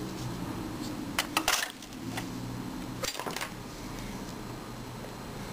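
Metal airsoft pistol parts clinking as they are dropped into the basket of an ultrasonic cleaner: a quick cluster of clinks a little over a second in and another about three seconds in, over a low steady hum.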